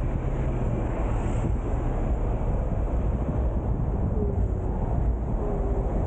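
Steady low rumble of a Hong Kong electric double-decker tram running along its tracks, heard from the upper deck, with wind buffeting the microphone.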